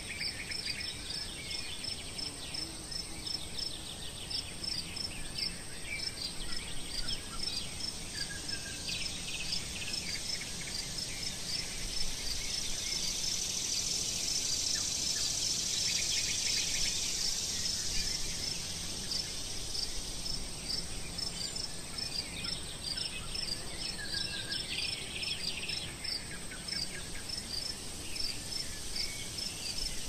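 Insects in summer grass chirping in a steady, even, high-pitched rhythm of about two to three chirps a second, with scattered bird calls over it. A high hiss grows louder through the middle.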